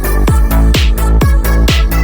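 Background electronic dance music with a steady kick drum, about four beats a second, and a hissing cymbal on every second beat.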